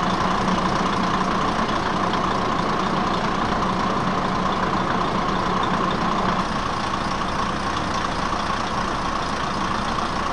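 Underfloor DMH17-series diesel engine of a Japanese diesel railcar (KiHa 20 / KiHa 55 type) idling steadily, heard close up beside the car, with an even low hum.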